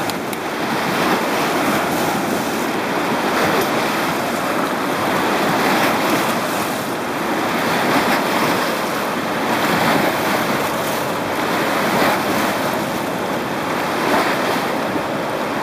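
River water churning and splashing against a rocky bank, a continuous wash that swells and eases every couple of seconds.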